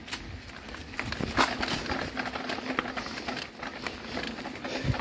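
Mountain bike rolling over a hard dirt-and-stone trail: tyres crunching and the bike rattling, with irregular clicks and knocks from bumps, the sharpest about a second and a half in.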